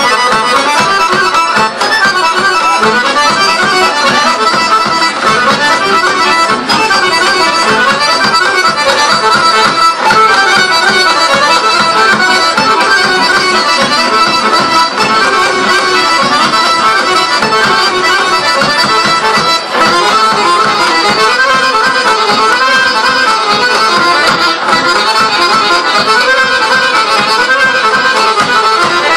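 Traditional Macedonian folk dance music playing loudly and without a break, accompanying a line dance.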